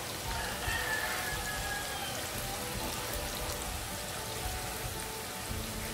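Sliced onions deep-frying in a kadhai of hot oil on a high flame: a steady, busy crackling sizzle. The onions are still pale and wet, early in the frying.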